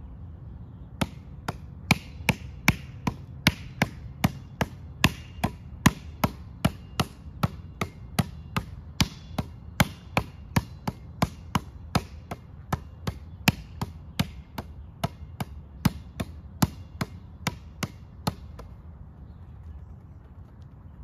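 A basketball slapped hard between the palms, a sharp smack about two to three times a second, stopping about 18 seconds in.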